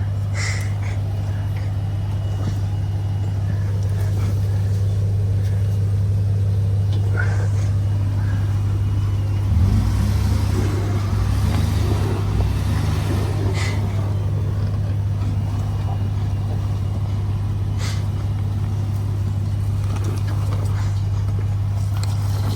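Off-road truck engine running steadily at low revs while crawling through a rocky trail section, picking up a little around the middle, with a few scattered sharp clicks and knocks.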